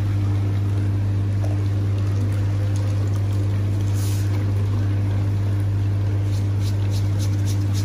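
Electric massage chair running, its motors giving a steady low hum. Near the end, quick rasping strokes of a foot file on the sole of a foot begin.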